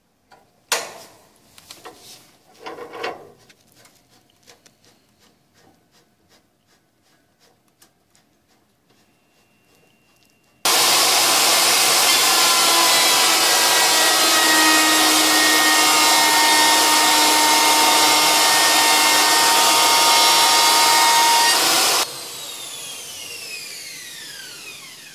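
A few knocks and clicks, then an acrylic beveling machine's under-table router starts suddenly and runs loud and steady for about eleven seconds as an acrylic panel is pushed along the jig to bevel its edge. It is then switched off, and its whine falls steadily in pitch as the cutter spins down.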